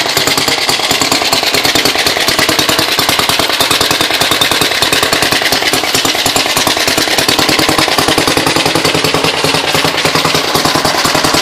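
1913 Shaw motorbike's single-cylinder, air-cooled engine running steadily, its exhaust a fast, even string of pops.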